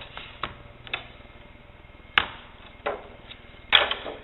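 Sharp wooden knocks and clicks from a banjo's parts being handled as the instrument is taken apart. There are about five, the loudest about two seconds in and just before the end, the last with a brief ring.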